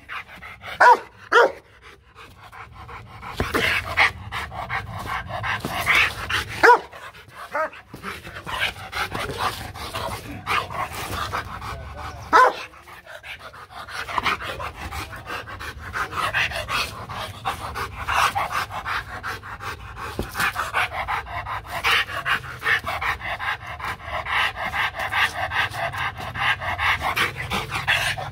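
Rottweiler barking, a few loud single barks in the first seconds and another about twelve seconds in, then panting hard as it runs and lunges on its leash.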